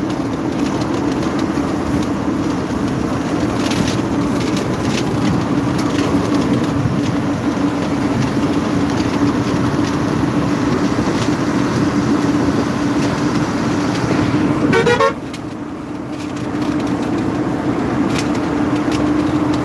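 Running noise of a moving passenger train heard at an open coach door: a loud, steady rumble with a constant hum. About fifteen seconds in there is a short rising sound, then it drops quieter for a moment before the rumble returns.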